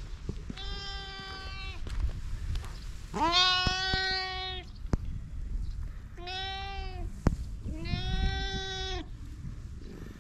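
Long-haired cat meowing: four drawn-out meows of about a second or more each, the second the loudest and longest, opening with an upward swoop.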